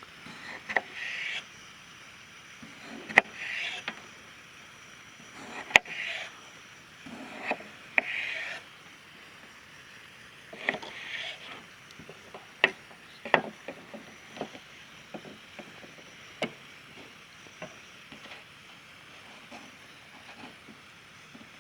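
Irregular knocks and clicks mixed with short scraping or rustling sounds, several a second at times, thinning out in the second half.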